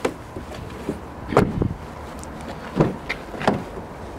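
Five or so short knocks and thumps at irregular intervals, the loudest about a second and a half in, over a faint steady hiss: handling and movement noise around an open car door.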